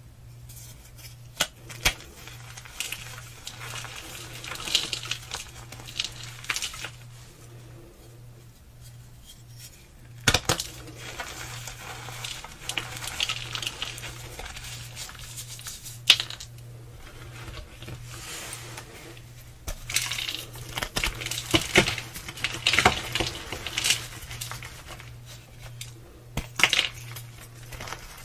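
Glitter-coated blocks of gym chalk crushed and crumbled by hand: crisp crunching and crackling with sharp clicks, denser and louder in the last third.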